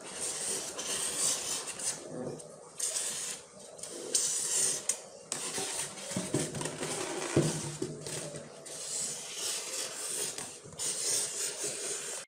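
Felt-tip marker scratching across polystyrene foam, in strokes of a second or two with short pauses between them. A brief knock about seven seconds in.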